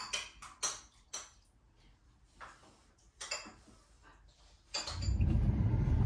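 Five light clinks of a spoon against a soup bowl and dishes, spaced out with quiet between. About five seconds in, the sound changes to a car running, a steady low rumble heard inside the cabin.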